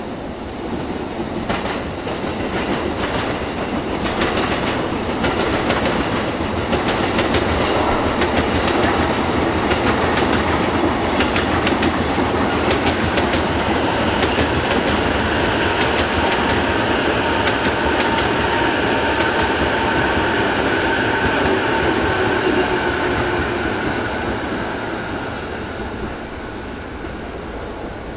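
JR East E233-series electric commuter train running past over pointwork, its wheels clattering over rail joints and switches. A steady high tone joins in while the cars pass, then the sound eases off near the end.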